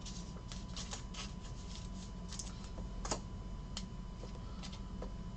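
A stack of trading cards being handled and flipped through by hand: scattered light clicks and flicks of card edges, with one sharper click about three seconds in.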